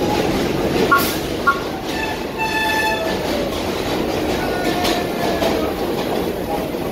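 R32 subway train running into an elevated station with a steady rumble. Two short beeps sound about a second in, a horn blows for about a second at two to three seconds in, and a wheel squeal glides downward in pitch later on.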